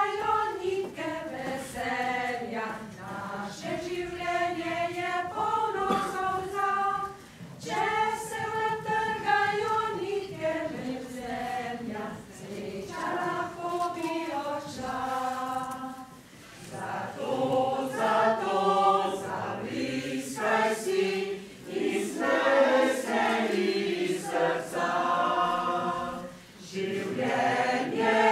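Choir singing an unaccompanied folk-style song in Slovene, in long held phrases with short breaks about every eight to ten seconds.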